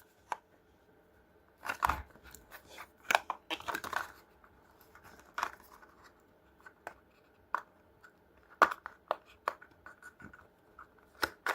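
Packaging around the cables of a wireless microphone kit being opened by hand: scattered irregular clicks, snips and short plastic rustles.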